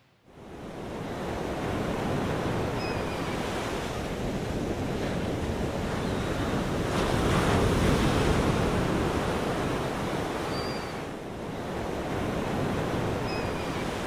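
Ocean surf washing onto a sandy beach: a steady rush of waves that fades in at the start and swells about halfway through.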